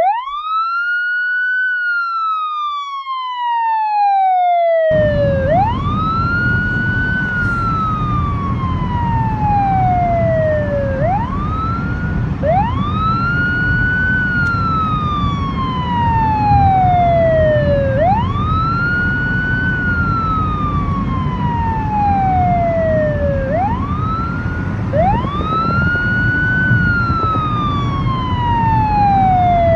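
A siren wailing: each cycle rises quickly in pitch and then falls slowly, repeating about every five and a half seconds. About five seconds in, a steady low rumble of road noise from a car on the highway joins it.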